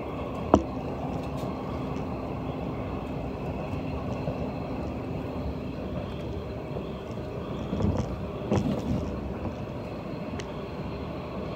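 Running noise of a JR 185 series electric express train heard from inside its Green car: a steady rumble of wheels on rail with a low hum that stops about six seconds in. There is a sharp clack about half a second in, and a few more knocks from the wheels over rail joints around eight to nine seconds in.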